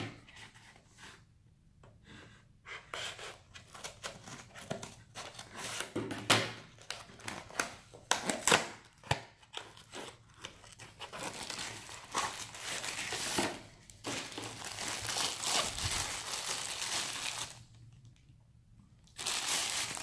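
Paper and plastic packaging handled by hand: a sealed cardboard box is opened and a product wrapped in a plastic bag is taken out. The sound is irregular rustling, scraping and crinkling with small clicks, and a short quiet pause near the end.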